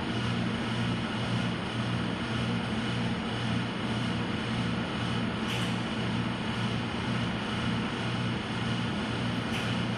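Electrostatic powder-coating gun spraying in a spray booth, its voltage and powder flow turned down: a steady rush of air with a low hum that pulses about twice a second, and two short puffs of air about halfway through and near the end.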